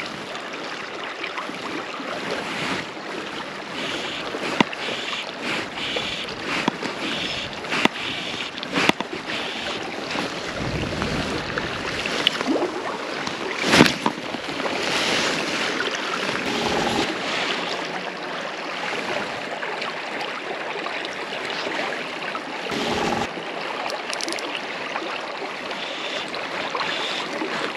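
A river running brown after a spate, its water rushing steadily past the bank. There are scattered short clicks and knocks, the sharpest a little before halfway, and two brief low rumbles.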